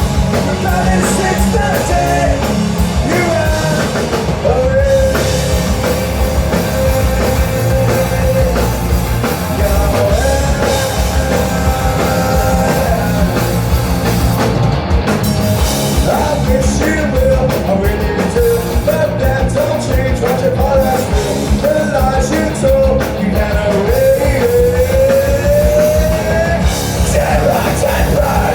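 Rock band playing a song with a lead singer, in a punk-leaning rock style; the full band and vocals run loud and steady.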